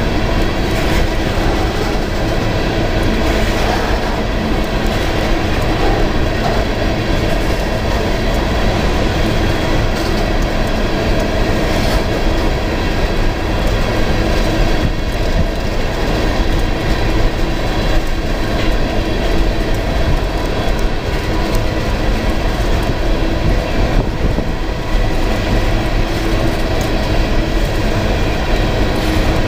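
Freight train cars rolling steadily past: a loud, continuous rumble of steel wheels on rail.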